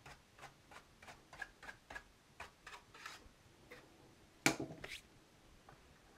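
A small brush dusting a TRS-80 Model 1's circuit board: a run of short, faint scrapes, two or three a second, then a louder clatter about four and a half seconds in.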